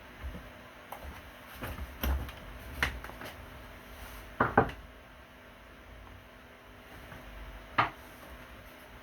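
Scattered knocks and clicks: several between two and three seconds in, a loud double knock about four and a half seconds in, and a sharp single knock near the end.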